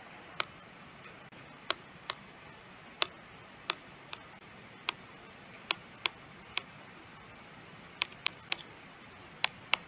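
Irregular sharp clicks and taps of handwriting being put onto a computer screen, about fifteen of them, sometimes in quick pairs, with a pause of about a second near the end.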